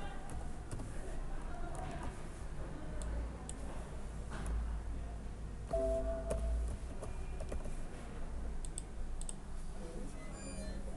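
Sparse computer keyboard typing and mouse clicks, scattered irregular clicks over a steady low hum. A short pitched hum about six seconds in is the loudest moment.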